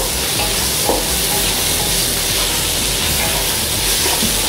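Mushrooms, onions and tomato sizzling steadily in oil in a non-stick pan while a spatula stirs them.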